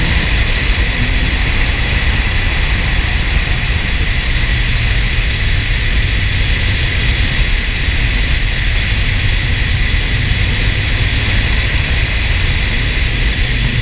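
Steady rush of wind buffeting the microphone, over a low road rumble from a car driving at speed; no clear engine note stands out.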